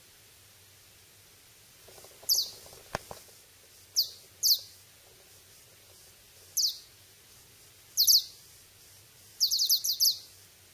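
Short, very high-pitched bird-like chirps, each a quick downward sweep. They come singly, in pairs and in a quick cluster of four or five near the end. There is one sharp click about three seconds in.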